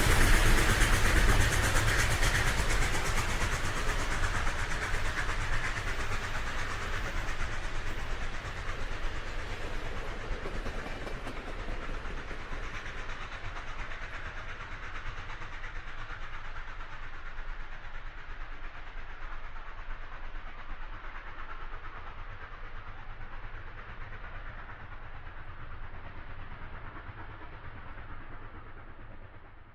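A loud, wide rushing noise that slowly fades over about half a minute, its high hiss dying away first, like something large passing and receding into the distance.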